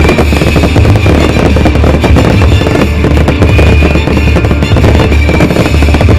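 Aerial fireworks going off in quick succession, dense crackling and low booms without a break, over loud music.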